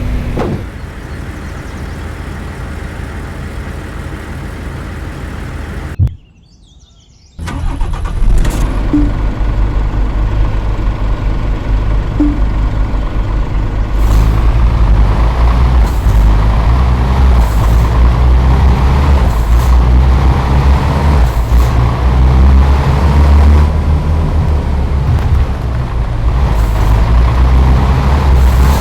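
A heavy diesel vehicle engine running with a steady low rumble, broken by a short near-silent gap about six seconds in. Brief hisses come every second or two through the second half.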